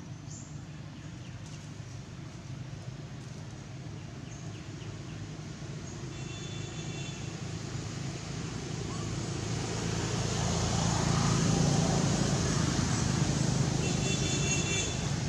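A motor vehicle's engine running with a steady low hum, growing louder over several seconds as it comes closer. Brief high-pitched tones sound twice.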